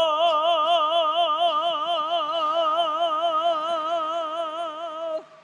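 A male singer holding one long, high note with a steady, even vibrato into a microphone, the final held note of the song. It stops abruptly about five seconds in.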